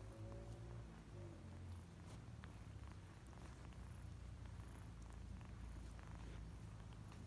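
Kitten purring, a faint low steady rumble, with scattered faint clicks.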